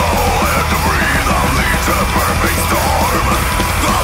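Heavy metal recording playing at full volume, with a high lead line sliding up and down in pitch over a dense, steady low end.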